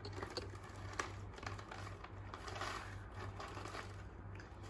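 Plastic snack wrapper being handled and opened, a run of small irregular crinkles and clicks, over a steady low hum.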